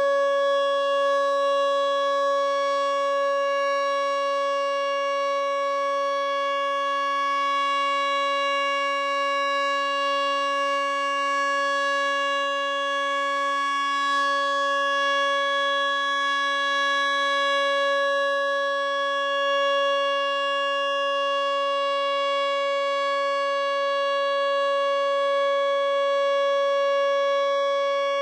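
Whelen 2910 outdoor warning siren sounding a steady, unwavering tone for its monthly test, its loudness swelling a little from time to time.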